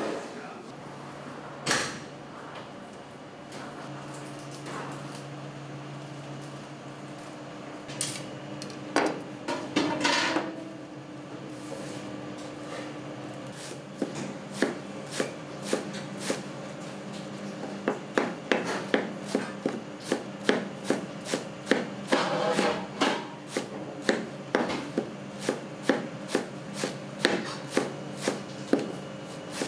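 Kitchen knife chopping vegetables on a cutting board: a few scattered knocks at first, then from about halfway through a steady run of strokes, about two a second. A steady hum of kitchen equipment sits underneath.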